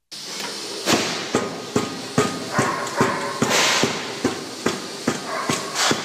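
Electric frog-type compactor (leapfrog rammer) running: the motor drives an eccentric flywheel by belt, and the machine thuds down on the ground about twice a second, the thuds starting about a second in over a steady machine hum.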